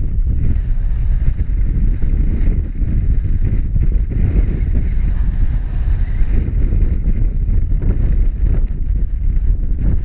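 Wind buffeting an action camera's microphone: a loud, steady, fluttering low rumble. Beneath it a mountain stream rushes faintly.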